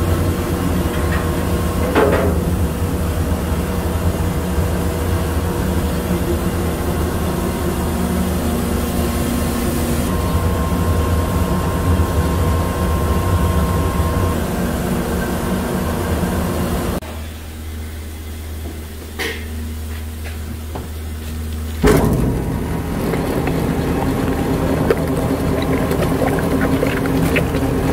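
Rice-cake mill machinery running with a loud, steady low hum. A short knock comes about two seconds in. The sound drops and changes for a few seconds past the middle, then the steady hum returns.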